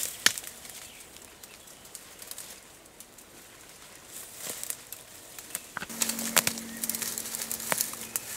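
Leaves and branches rustling with sharp snaps and cracks of twigs as someone pushes through dense bushes by hand. A steady low hum comes in about six seconds in.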